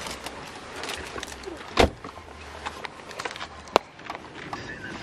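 Rustling and handling noise in a car's back seat, with a dull thump about two seconds in and a single sharp click near four seconds.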